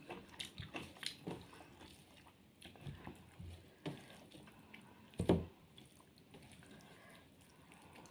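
Eating by hand: quiet chewing and mouth smacks, with fingers squishing rice and fish curry on a plate, and a louder thump a little past five seconds in.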